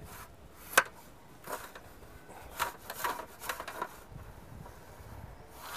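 Telescopic levelling staff being pulled out section by section, sliding with several sharp clicks and knocks as its sections catch and lock; the loudest click comes about a second in.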